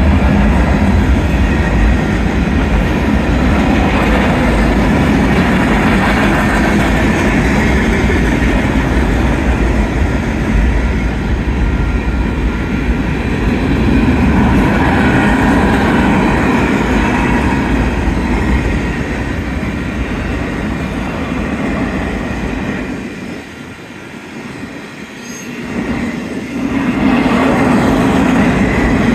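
Union Pacific manifest freight train's cars rolling past, a steady rumble and rattle of steel wheels on rail, which eases for a few seconds near the end before building again.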